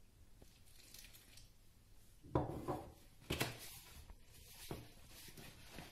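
Bread dough being kneaded by hand in a plastic bowl, with a little warm water poured in first: soft squishing and handling sounds with several short knocks, the loudest about two and a half and three and a half seconds in.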